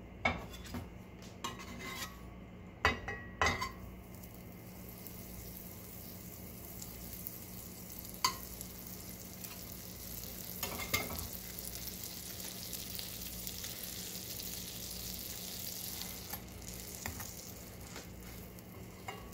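Butter melting and sizzling in a nonstick frying pan under a grilled cheese sandwich, the sizzle swelling after a few seconds and easing off near the end. A butter knife taps and scrapes against the pan several times in the first few seconds and twice more midway.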